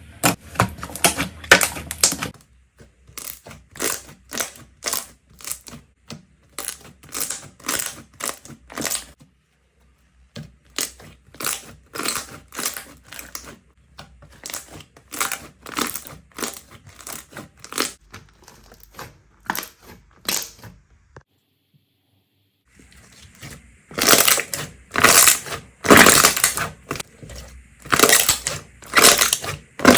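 Slime being squeezed and pressed by hand, making quick runs of sharp crackling pops. The crackling stops for a second or two about three quarters of the way through, then resumes louder.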